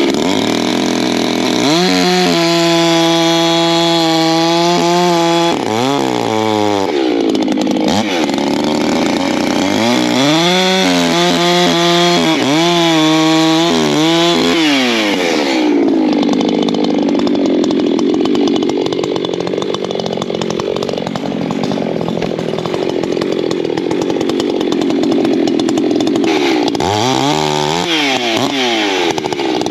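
Ported Echo CS-620 two-stroke chainsaw bucking firewood. It revs up to full throttle and holds high, with the pitch dipping and climbing again between pushes. For about ten seconds in the middle it runs lower and rougher while in the cut, then revs up again near the end.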